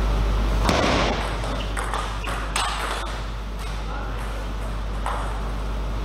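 Table tennis ball clicking off rubber-faced bats and bouncing on the table in a short rally over a steady low hum. A last isolated bounce comes near the end.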